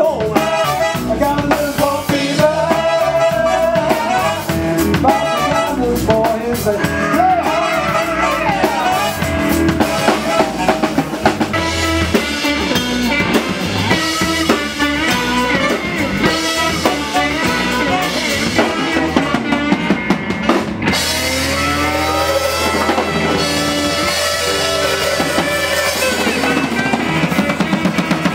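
Live band playing an instrumental passage: trumpet and saxophones over electric guitar, bass and a drum kit, with the drums prominent. The sound changes abruptly about two-thirds of the way through.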